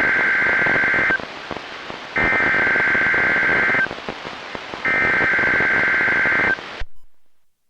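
Emergency Alert System SAME header data bursts sent three times over a NOAA Weather Radio broadcast. Each burst is a harsh warbling screech of about a second and a half, heard over heavy radio static. This is the digital code that opens an EAS alert, here the tornado drill. The static cuts off suddenly near the end.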